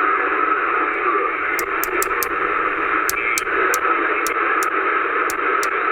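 Q60 CB radio's speaker hissing with steady static on upper sideband, with a dozen or so sharp clicks at irregular intervals from the channel knob being flicked through the channels.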